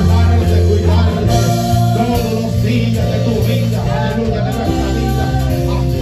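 Live church worship band music: slow held chords over a steady bass, changing about a second in and again near five seconds.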